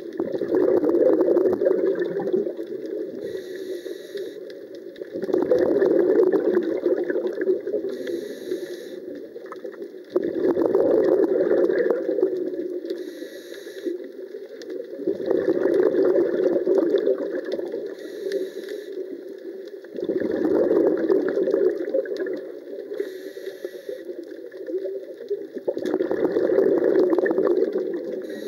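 Scuba diver breathing through a regulator underwater. Six exhalations send out burbling bubbles, each about two seconds long and about five seconds apart, and a short hiss from the regulator marks each inhalation between them.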